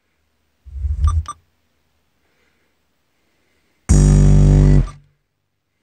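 Car stereo playing music from USB through subwoofers in only short snatches as tracks are skipped. A brief burst of bass-heavy music about a second in, then near silence, then a louder second-long burst of synth and keyboard music with deep bass about four seconds in, each cut off suddenly as the next track is selected.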